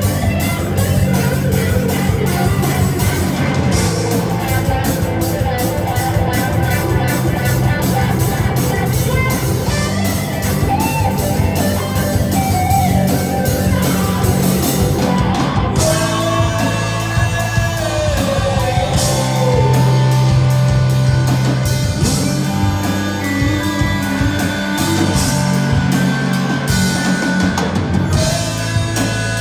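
A live rock band playing: electric guitars and bass over a drum kit. The cymbals thin out about halfway through, leaving gliding guitar or vocal lines over the bass and drums.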